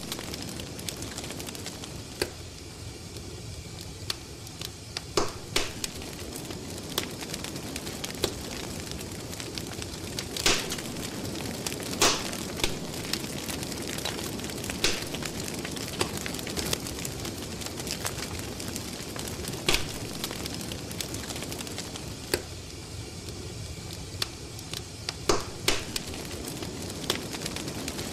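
Crackling fire: a steady hiss broken by scattered sharp pops and snaps every few seconds.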